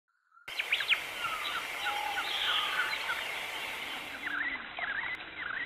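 Many birds chirping and whistling over a steady background hiss, starting about half a second in. The calls are short and sweep up and down in pitch.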